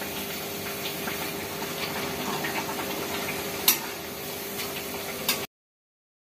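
Kitchen sounds: a steady sizzling hiss with small crackles over a low hum, with two sharp metal clinks of utensils, the second near the end. The sound then cuts off abruptly.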